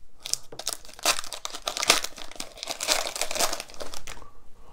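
Foil wrapper of a hockey card pack crinkling as it is torn open and worked off the cards by hand, a dense run of crackles that dies away about four seconds in.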